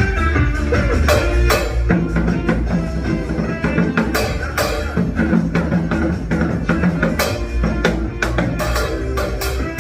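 Korean trot song backing music with bass and a steady beat, a janggu drum struck along with it in sharp hits.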